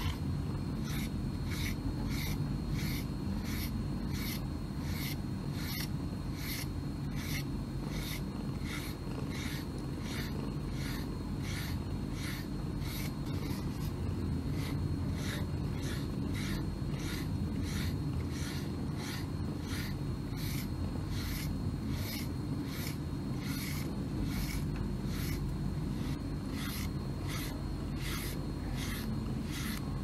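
A round pet grooming brush stroking through a cat's fur in steady rhythmic scratchy strokes, about two a second, over a soft, steady low purr from the cat.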